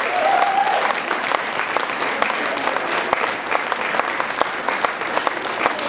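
Audience applauding, a dense, steady patter of many hands clapping. A single held note sounds over it for the first second.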